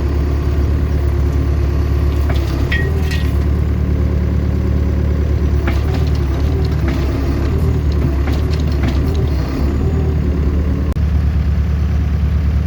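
Tractor engine running steadily, with scattered knocks and clatters over it.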